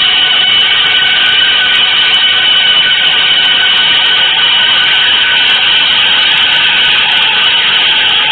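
Loud, steady wall of hissy noise with faint held tones inside it, a drone from an avant-garde noise composition.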